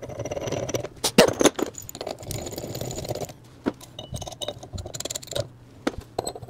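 Steel parts of a bearing puller clinking and scraping as its legs and crossbar are fitted and its nuts placed, with a few sharp metal knocks between stretches of scraping.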